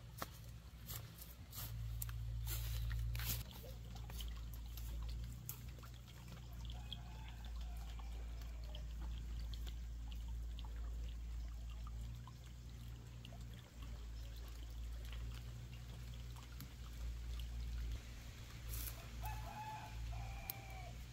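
Footsteps crackling through dry brush and ferns in the first few seconds, over a steady low wind rumble on the microphone. A rooster crows in the distance, once around the middle and again near the end.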